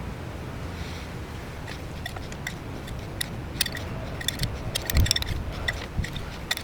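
Light clinks and taps of a utensil against bowls as salsa is dished into them, with a dull thump about five seconds in.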